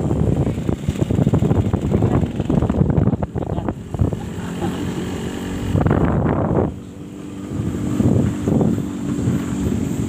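Motorcycle engine running as it is ridden along a road, with heavy wind buffeting on the microphone. The engine briefly quietens about seven seconds in.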